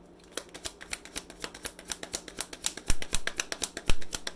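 A deck of tarot cards being shuffled by hand: a fast run of crisp card snaps, about eight to ten a second, with two louder slaps near the end.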